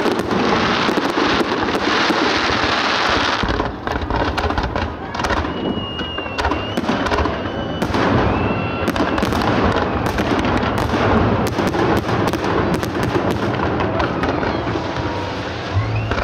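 Fireworks display: a dense run of bangs and crackling shell bursts, with a few short whistles about halfway through.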